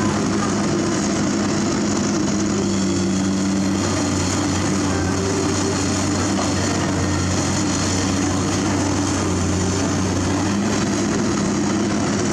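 Komatsu PC200 hydraulic excavator's diesel engine running at steady working revs while the machine digs, a constant low hum.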